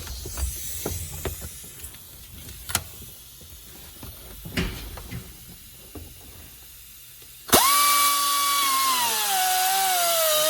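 Scattered knocks and clicks of tools being handled, then about seven and a half seconds in a power tool starts with a sudden loud high whine whose pitch slowly falls.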